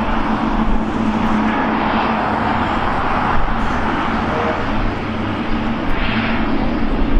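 Steady jet-engine noise from airliners taxiing at the airport, mixed with road traffic.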